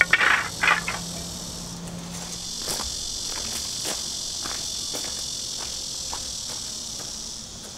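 A wooden camp table clatters twice as its top is set onto its folding legs, then footsteps crunch on gravel. Summer insects keep up a steady high-pitched drone from about two seconds in.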